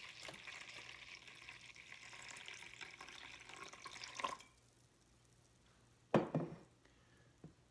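Soy sauce pouring in a thin stream from a bottle into a bowl of other sauce, a steady trickling that stops abruptly about four and a half seconds in. A short, louder sound follows about six seconds in.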